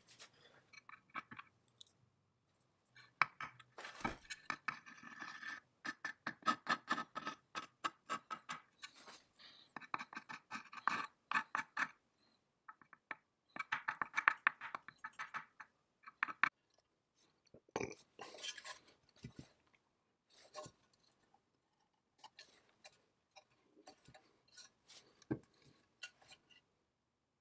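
Hand sanding on a painted metal chainsaw housing half, with runs of quick scraping strokes. Near the end come a few knocks from handling as the two housing halves are fitted together.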